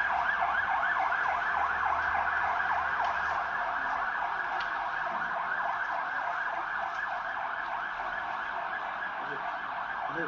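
Emergency vehicle siren sounding in a fast, repeating yelp, about four or five sweeps a second, slowly growing fainter.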